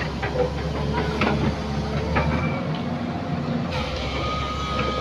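SANY hydraulic excavator running, a steady diesel engine drone under the hydraulics as the boom and bucket move, with a few sharp metal clanks.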